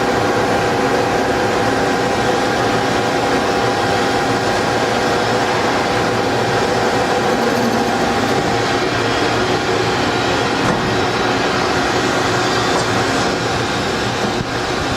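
CNC drill line for structural steel running steadily while drilling steel angle, with a few held tones over an even machine noise.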